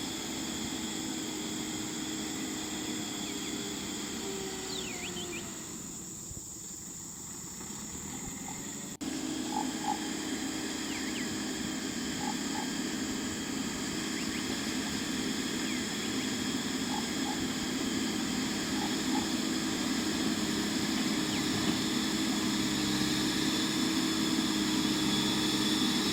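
Backhoe loader's diesel engine running steadily under a continuous high drone of insects, with a few short chirps. A sudden click about nine seconds in, after which it runs a little louder.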